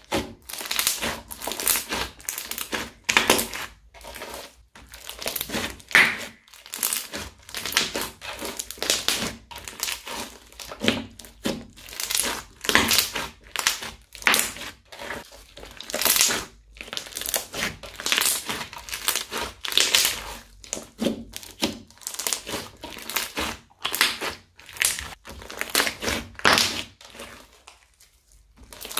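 Crunchy slime studded with small beads crackling and crunching as hands press, knead and stretch it. The crunches come thick and irregular, several a second, and thin out briefly near the end.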